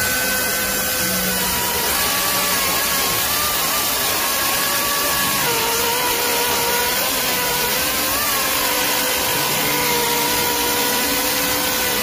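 Greenworks Pro 80V cordless chainsaw running under load as its 18-inch chain cuts through a roughly 280 mm log: a steady electric motor whine over the hiss of the chain in the wood. The whine drops slightly in pitch about five seconds in.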